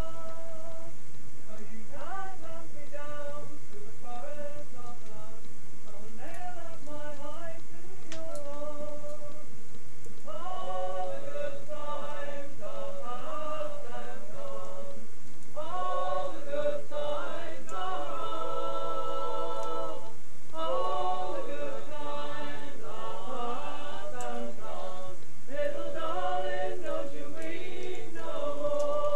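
Unaccompanied group singing: a thinner melodic line at first, swelling into several voices singing together about ten seconds in.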